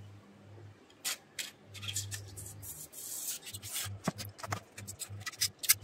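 Plastic syringe tip scraping and rubbing on a white foam plate while it draws up melted chocolate, a run of irregular short scrapes and clicks with the sharpest near the end.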